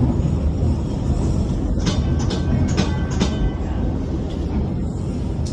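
Steady low rumble of a train in motion, with a short cluster of metallic squeals and clanks from the wheels and couplings about two to three seconds in.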